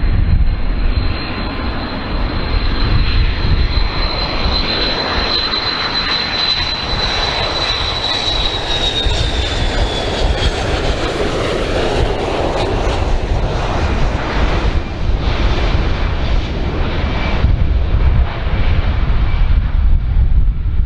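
Boeing 727 jet, its three JT8D turbofans running, on final approach. A high engine whine holds steady and then drops in pitch as the aircraft passes, over a continuous jet roar and low rumble.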